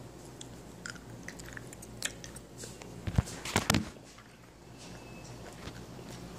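Person chewing a piece of candy close to the microphone, with small wet clicks and a few louder clicks about three to four seconds in.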